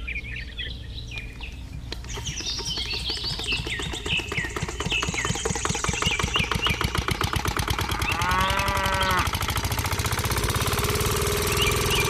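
Small single-cylinder stationary diesel engine starting after hand-cranking, then running with a fast, even putter that grows louder over the first several seconds. Birds chirp in the background.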